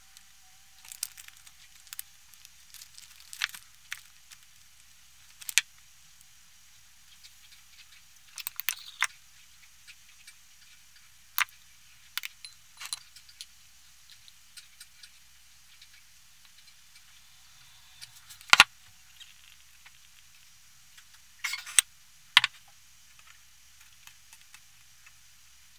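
Kitchen roll being torn and crumpled while raw chicken is handled: intermittent crinkling and rustling with sharp clicks at irregular intervals, the sharpest about two-thirds of the way in.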